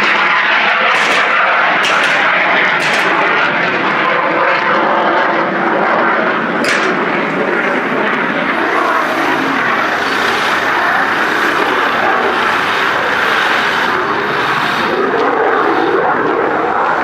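Farm machinery running steadily, with a few sharp clicks in the first seven seconds.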